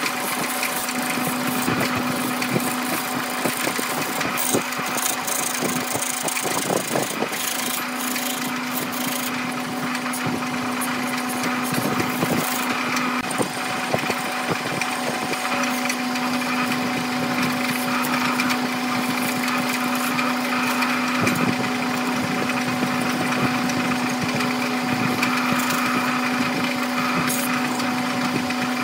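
Wood lathe running with a steady motor hum while a turning gouge cuts the spinning epoxy resin and bamboo blank, a continuous scraping cut with scattered small clicks as ribbon shavings peel off.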